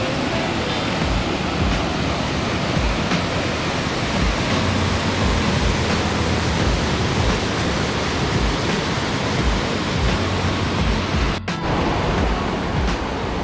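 Small mountain river rushing: a steady wash of water noise, with irregular low thumps under it, cutting out for a moment about eleven seconds in.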